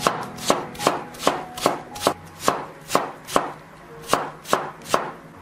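Cleaver chopping an apple into small dice on a wooden cutting board: steady knocks of the blade on the board, about two and a half a second.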